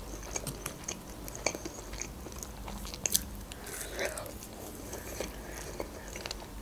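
Eating sounds of a syrnik (cottage-cheese pancake) dipped in thick yogurt being bitten and chewed, with scattered small mouth clicks.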